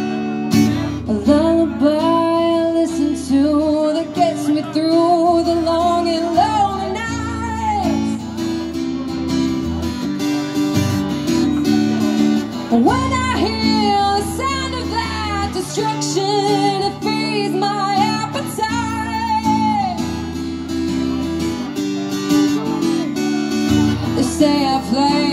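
Live acoustic guitar strumming chords, with a woman singing long, wavering melody lines over it.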